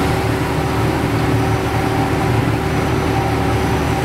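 Ferry's engine running with a steady, even drone while the boat is under way, heard from on board.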